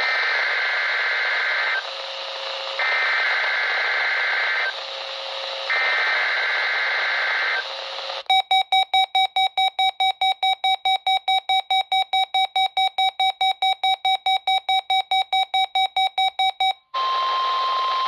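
NOAA Weather Radio broadcast over a RadioShack 12-254 weather radio's small speaker sending the three SAME digital header bursts of a Required Weekly Test: harsh buzzing data screeches, each just under two seconds, with short gaps between. The radio then sounds its own alert, rapid beeping about four times a second for some eight seconds, as it decodes the weekly test. A brief steady tone over broadcast hiss follows near the end.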